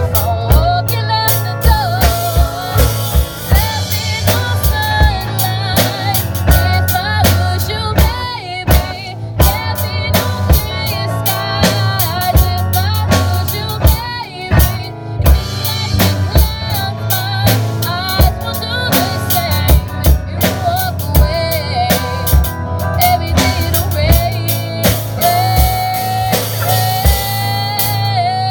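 A live band playing a pop cover in rehearsal: a drum kit keeps a steady beat under bass and a melody line.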